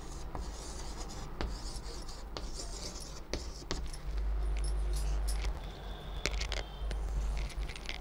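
Chalk tapping and scratching on a chalkboard as a word is written, with bangles on the writing wrist clinking in short jingles. A low rumble sounds for a few seconds in the middle.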